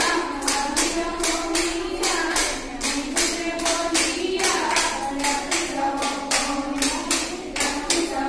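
Group of women singing a Jeng Bihu song together over steady, even hand clapping, about three to four claps a second.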